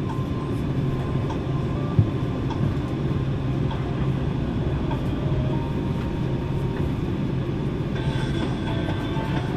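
Cabin noise inside a Boeing 747-8 taxiing: a steady low rumble and hum of the engines and the wheels rolling on the taxiway, with a single thump about two seconds in.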